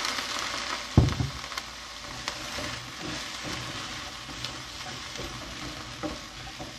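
Roast pork with shallot and ginger sizzling in a hot wok just after a splash of cooking wine, the sizzle slowly dying down. A metal spatula stirs and turns the pieces, with a thump about a second in and a few light clicks against the pan.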